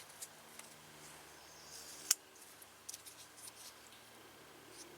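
Gerber Bear Grylls lockback folding knife being handled and opened: faint light ticks and rubbing, then a short swish ending in one sharp click about two seconds in as the blade locks open.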